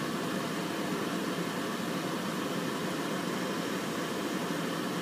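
Steady outdoor background noise: a constant rushing hum with no distinct events.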